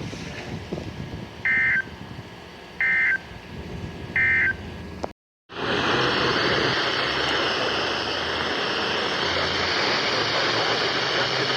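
Three short warbling data bursts of the NOAA Weather Radio EAS/SAME end-of-message code, about 1.3 s apart, ending the required weekly test. A brief cut-out follows, then steady loud radio static hiss as the broadcast carrier drops.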